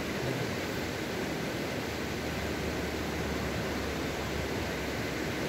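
A stream rushing steadily over rocks, an even hiss with no break.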